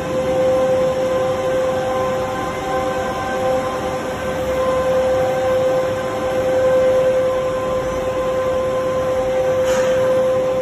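Lanson GT-LS3300S 3300-ton plastic injection molding machine running: a steady machine hum with a held whining tone over a noisy background.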